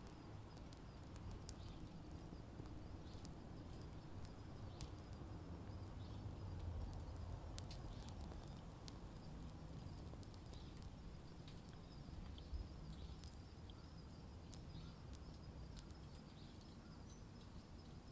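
Wood fire crackling: scattered sharp pops and snaps from the burning wood over a low, steady rumble.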